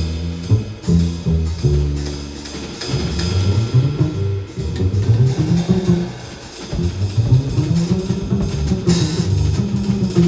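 Live jazz trio: bass carrying moving low notes over drum kit and cymbals, with little or no horn above them.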